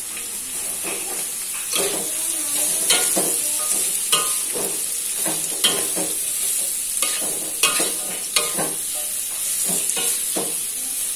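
Chopped young papaya sizzling in hot oil in a pan as it is stir-fried, a steady hiss broken by a spatula knocking and scraping against the pan many times at an uneven pace.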